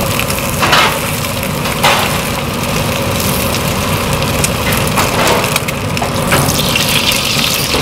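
Egg cooking in a nonstick frying pan over a gas burner, with a steady low rumble underneath. A metal fork and spatula scrape and knock against the pan a few times as the omelette is rolled.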